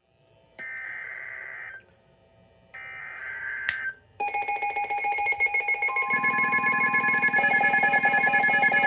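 Emergency alert broadcast on NOAA Weather Radio: two harsh digital data bursts of about a second each with a short gap between them, then from about four seconds in a loud, pulsing electronic alert tone made of several pitches, with another steady tone joining about two seconds later. This is the coded header and attention signal that open a new weather warning.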